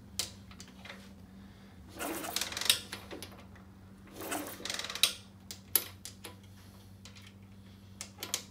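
Lifan mini-bike engine turned over with its spark plug out and held against the cylinder head to check for spark: two short bursts of cranking about two and four and a half seconds in, then a few sharp clicks, over a steady low hum.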